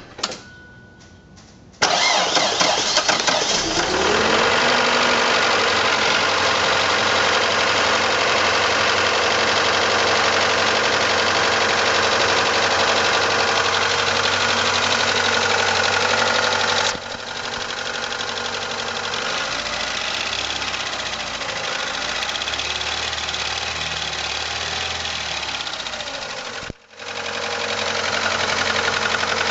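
Turbocharged 2.2-litre four-cylinder (Mazda F2T) engine of a 1989 Ford Probe GT starting about two seconds in and running steadily, carrying the knocking sound that the owner wants diagnosed. The sound gets quieter a little past halfway and cuts out briefly near the end.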